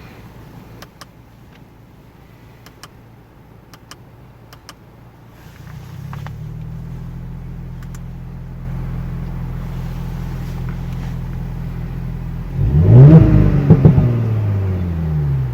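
Audi S5 V6 idling steadily, with a few light clicks over the first few seconds; the idle grows louder from about five seconds in. Near the end the engine is blipped twice in quick succession, its pitch rising and falling, which is the loudest part.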